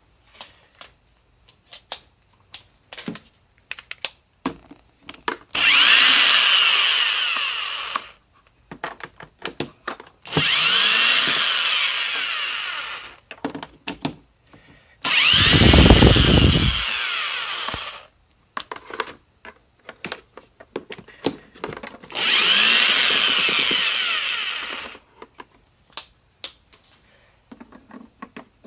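Cordless drill-driver whirring in four bursts of two to three seconds, its motor pitch rising and falling within each burst, while backing out screws to take apart a canister vacuum. Small clicks and handling knocks come between the bursts.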